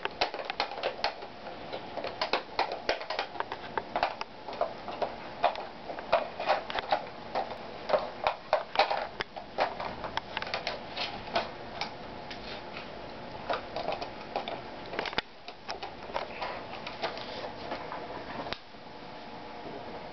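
German Shepherd puppy chewing a clear plastic bottle: irregular crackling clicks of plastic under its teeth, coming in quick clusters and thinning out in the second half.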